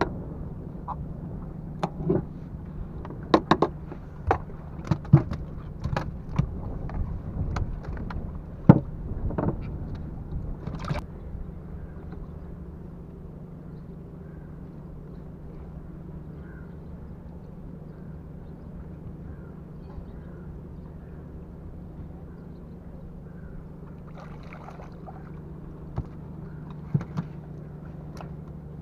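Sharp knocks and clicks of fishing gear and hands working on a wooden boat deck, thick in the first ten seconds or so, then only a few near the end, over a steady low hum.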